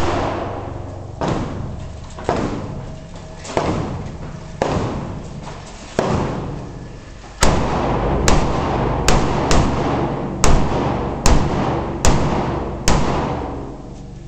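Rifle shots from a compensated 5.56×45 mm AR-15-type rifle, a Schmeisser M5f, each crack ringing off in a long echo off the indoor range's walls. About a dozen shots: roughly one a second at first, then quicker from about halfway through.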